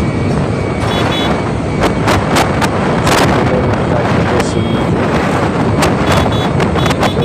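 Steady engine and road noise heard from inside a large vehicle driving along a highway, with scattered knocks and rattles. A few short high beeps come about a second in and again near the end.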